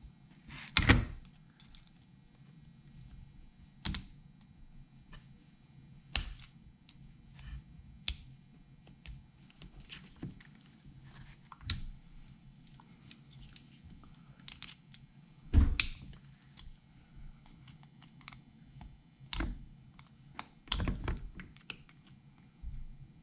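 Irregular clicks, taps and clatters of hand tools against small metal chainsaw engine parts as they are worked apart. The loudest knocks come about a second in, in the middle and a little before the end.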